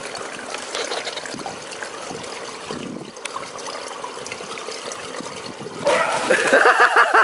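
Swimming-pool water lapping and trickling, then a loud splash about six seconds in as a swimmer bursts up out of the water, followed by a person's quick rhythmic laughter.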